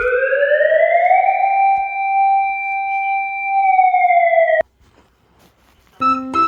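A single held tone, like a siren or theremin, that glides up in pitch for about a second, holds steady, sags slightly and then cuts off suddenly. Near the end, short stepped musical notes start.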